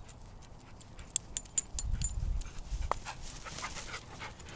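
A dog panting close by amid rustling grass, with scattered sharp clicks and a low rumble about two seconds in.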